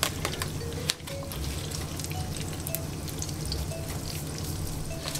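Bream fillet frying in hot oil in a pan: a steady crackling sizzle with frequent small pops.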